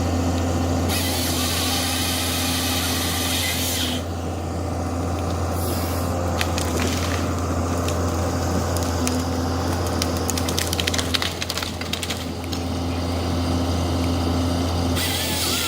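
Snowplow's engine running with a steady low hum. Stretches of hissing come as the blade pushes through deep snow, about a second in and again near the end, and a run of quick clicks and crackles comes midway.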